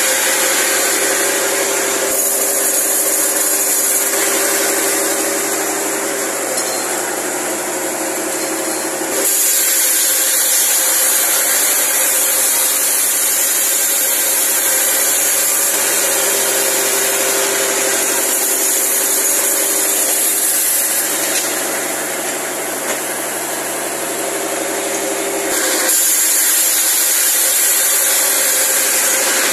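Vertical band sawmill driven by a Fuso truck engine, running steadily while teak offcuts are fed through the blade. The saw's hiss grows louder about a third of the way in and again near the end, the stretches that fit boards passing through the cut.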